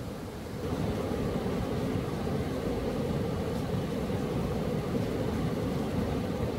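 River rapids rushing over rocks, a steady roar that steps up in loudness about half a second in.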